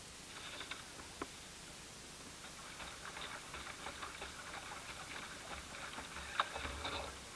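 Faint, irregular ticking and pattering of small lake ripples lapping against a boat's hull, with a sharper click about a second in and a louder one a little after six seconds.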